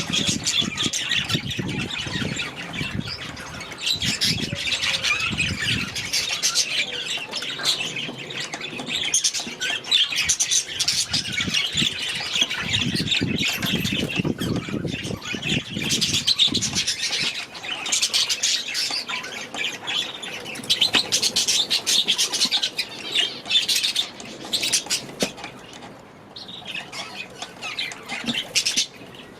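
A flock of budgerigars chattering and squawking without pause, many birds calling at once in fast, scratchy warbles and chirps.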